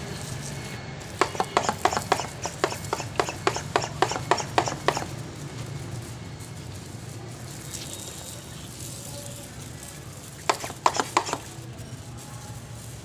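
Handheld pump-pressure sprayer clicking as it is worked to spray water: a fast run of sharp clicks, about four a second for some four seconds, then a shorter run of clicks near the end.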